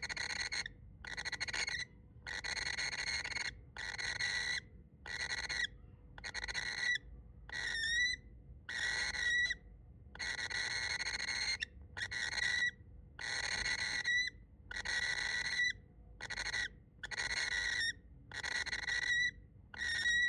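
A baby bird's harsh, hissing snoring calls, repeated roughly once a second; several end in a short upward flick.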